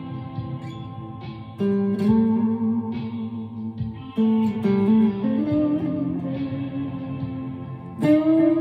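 Chapman ML3 Pro Traditional electric guitar with Seymour Duncan Hot Tele pickups played in a slow, ambient style: picked notes and chords left to ring and overlap, with a fresh one struck every second or so.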